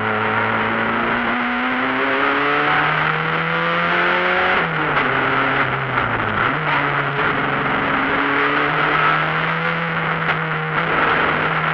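Renault 21 rally car's engine pulling hard up a hillclimb, heard from inside the car. The engine note rises, falls away sharply about four and a half seconds in and keeps dropping for a moment, then picks up again and holds steady under load.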